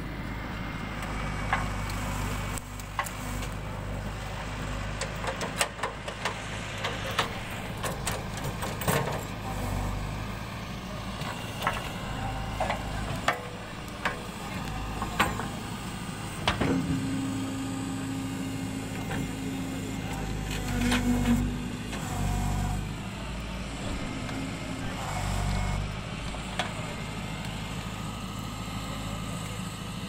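Backhoe loader's diesel engine running steadily while the rear backhoe digs a trench in soil. Repeated sharp clanks and knocks come from the bucket and linkage, most of them in the first half. A short steady whine comes in twice around the middle.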